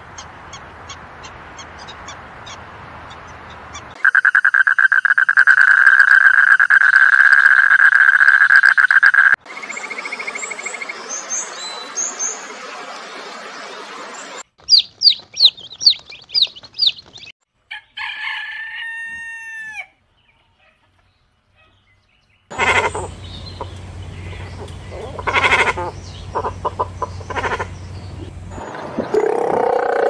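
A string of short animal-call clips, each cut off abruptly. It opens with faint regular chirps and a loud steady buzz about four seconds in, then bird chirping. Near the middle come rapid, high, falling peeps of domestic chicks, then a few falling calls, a short silence, and repeated fowl calls near the end.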